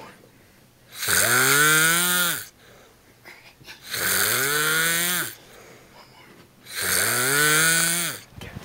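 A sleeping man snoring loudly: three long snores about three seconds apart, each a buzzing tone that slides down in pitch as it ends, with quiet gaps between.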